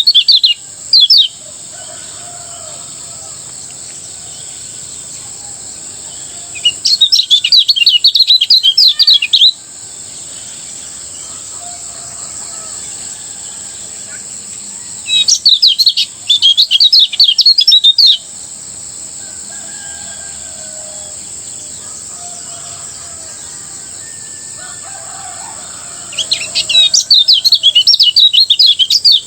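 Kecial kuning (a Lombok white-eye) singing its rapid, high twittering 'ngejos' song in bursts of about two to three seconds: one ending about a second in, then three more, roughly every eight to ten seconds.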